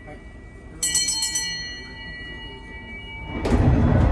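A hand bell struck once about a second in, rung by the train attendant as the departure signal, its bright ringing tone fading over a couple of seconds. Near the end a louder rush of noise comes in.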